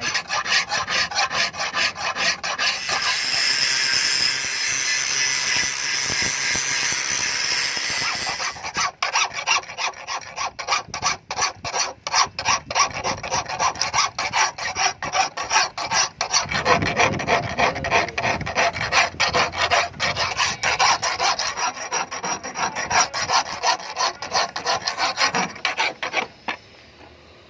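Hand filing: a file or rasp scraping steadily for the first eight seconds, then working in quick separate strokes, several a second, until it stops just before the end.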